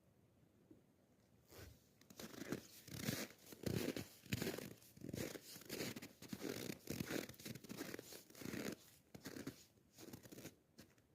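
Footsteps crunching and creaking in dry, frozen snow at a steady walking pace, starting about a second and a half in and stopping near the end.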